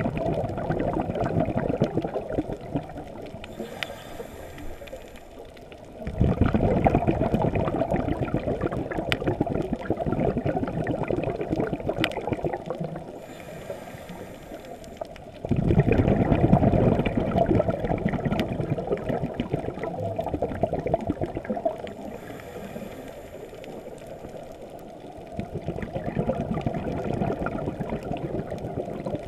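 A scuba diver's breathing heard underwater: long bubbling exhalations, three times, with quieter hissing inhalations between them, in a slow cycle of roughly ten seconds.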